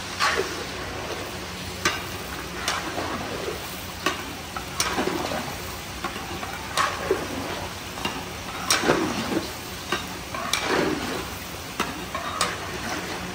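Beef frying with browned onions in hot ghee in a large pot, sizzling steadily, stirred through in scraping strokes every second or two.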